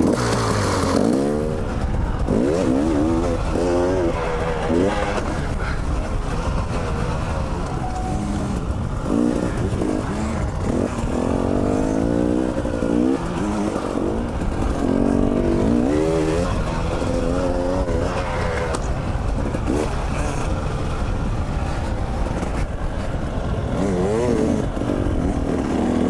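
Dirt bike engines running on a trail ride, revving up and falling back again and again with throttle and gear changes.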